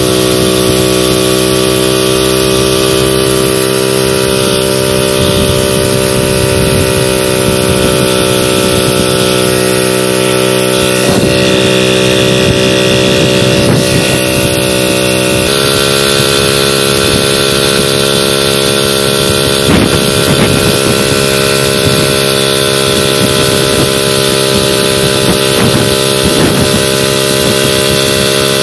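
VéloSoleX moped's small two-stroke single-cylinder engine running steadily at cruising speed. Its pitch shifts slightly about halfway through.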